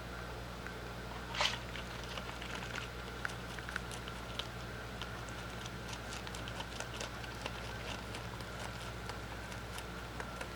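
A rabbit chewing leafy vegetables: rapid, small crunching clicks, with one louder crunch about a second and a half in.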